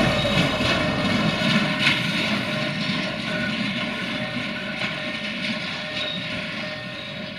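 Diesel engine of a Matisa track maintenance vehicle running as it drives away along the line, a steady drone that fades gradually, with a few faint clicks from the wheels on the rails.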